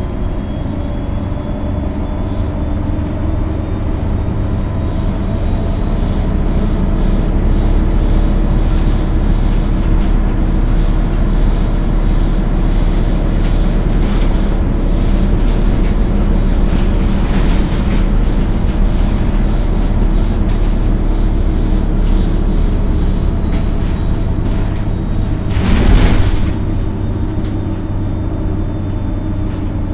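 MAN NL 263 city bus heard from inside while driving: its six-cylinder diesel engine and drivetrain hum steadily, growing louder over the first several seconds as the bus picks up speed. About 26 seconds in there is a brief loud burst of noise.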